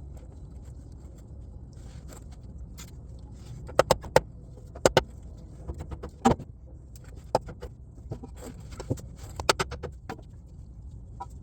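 Sharp knocks on a block of wood, driving a new output shaft seal into its bore. They come in scattered groups of one to three, starting about four seconds in.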